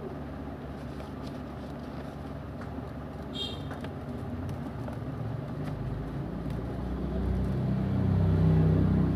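Low engine rumble of a motor vehicle, growing louder over the last three seconds, with faint rustling of a paper mailer being handled and a brief high chirp about three and a half seconds in.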